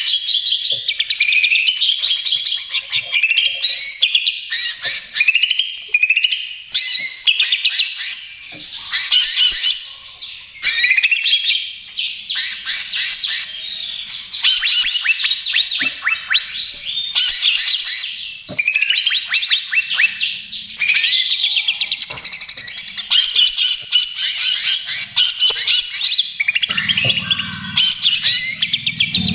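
Cucak ijo (green leafbird) singing vigorously in the rapid, chattering 'trotol' style: bouts of fast repeated notes and trills, each a second or two long, separated by brief pauses. A low hum comes in near the end.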